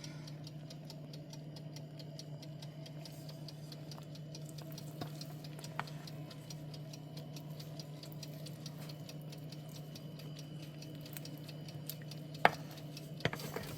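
Mechanical kitchen timer ticking steadily over a low, steady hum, with a few sharper clicks, the loudest near the end.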